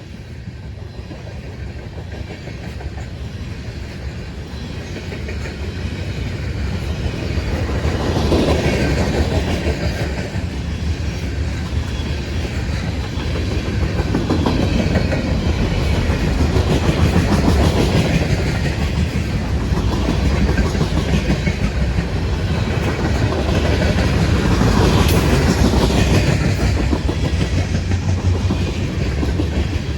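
Freight train cars rolling past, a steady rumble with the clickety-clack of wheels over the rail joints, growing louder over the first several seconds and then holding.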